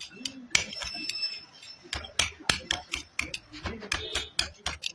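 A quick, irregular run of sharp knocks and clinks from hard objects being handled or tapped, one of them ringing briefly about half a second in.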